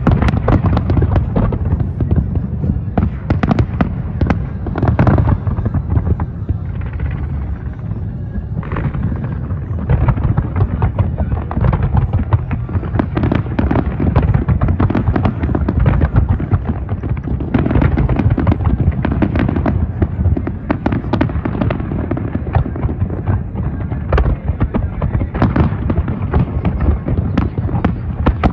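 Massed aerial fireworks shells bursting in a dense, continuous barrage of overlapping bangs and cracks, heavy in the low end, with no pauses.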